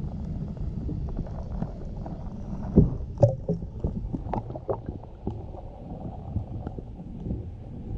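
Stream water heard underwater through a GoPro housing: a muffled low rush with scattered bubble pops and knocks, the loudest a thump a little under three seconds in.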